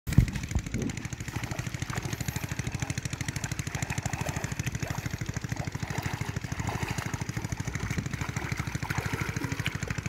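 A small engine running steadily with a fast, even thumping beat, with one sharp knock right at the start.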